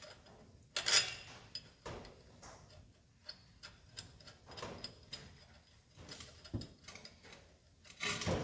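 Small metallic clicks and taps of a bolt and spacer being handled at the lower mounting bracket of a motorcycle crash bar and water pump protector. There is a sharper click about a second in and a louder clatter near the end.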